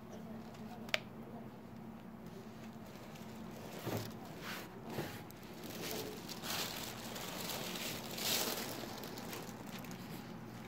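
Soft rubbing and rustling strokes, with a single sharp click about a second in.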